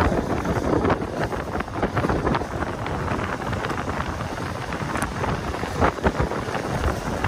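Wind rushing over the microphone at speed, with the rumble of longboard wheels rolling fast on asphalt and small irregular knocks from the road surface.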